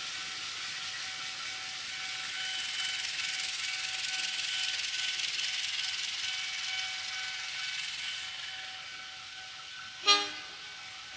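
A passing train's rolling noise with a faint steady whine from the wheels on the rails, swelling and then easing off. About ten seconds in, a brief, sharp pitched blip is the loudest sound.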